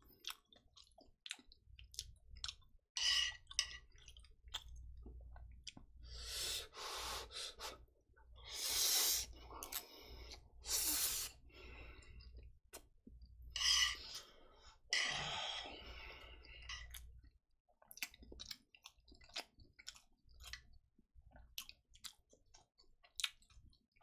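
A person chewing a mouthful of jjapaguetti noodles (black-bean-sauce instant noodles with melted mozzarella) and breathing heavily, with scattered small clicks and several louder breathy stretches between about six and seventeen seconds in.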